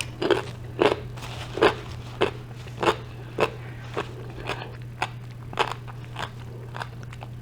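Close-miked crunchy chewing of a gyro, one crisp bite-crunch roughly every half second. A faint steady low hum runs underneath.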